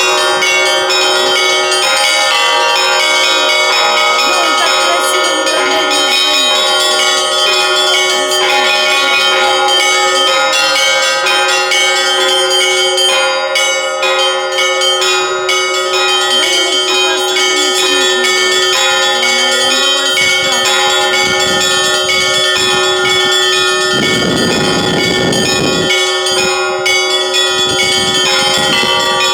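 Russian Orthodox church bells rung in a continuous peal (zvon). Small bells are struck in quick repeating patterns over the sustained ringing of the larger bells.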